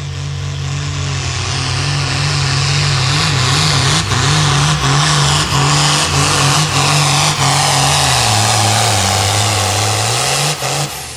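Modified diesel farm tractor engine at full throttle pulling a weight-transfer sled. It runs hard and steady, with brief dips in loudness about every half second midway. Its pitch sags about eight seconds in as it labours under the load, then climbs again and cuts off abruptly just before the end.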